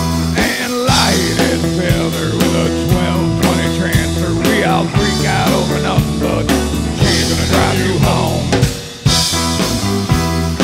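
A live rock band playing: electric guitar, bass guitar and drum kit, with bending guitar notes over a steady beat. The band drops out briefly about nine seconds in, then comes back in.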